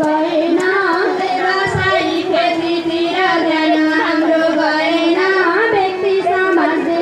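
Women singing a Nepali Teej song in high voices with musical accompaniment, the melody moving in long held notes.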